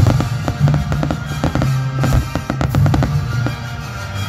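Aerial firework shells bursting in quick succession, with crackling, over music with held low notes; the bursts thin out near the end.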